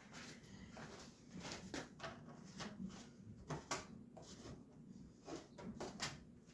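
Faint handling sounds: scattered light knocks, clicks and rustling while spilled coolant is wiped up around the motorcycle.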